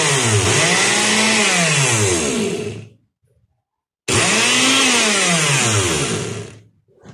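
Oster blender motor run twice in short bursts of about three seconds, each rising in pitch as it spins up and falling as it winds down. It is running on a freshly replaced square drive coupling and works without trouble.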